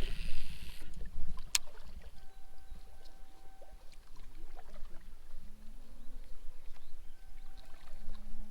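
Water sounds around a small fishing boat over a low rumble, with a short splash right at the start and a single sharp click about a second and a half in.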